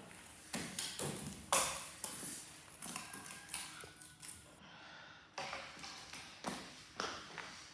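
Firewood being broken up: a series of sharp woody cracks and snaps at uneven intervals.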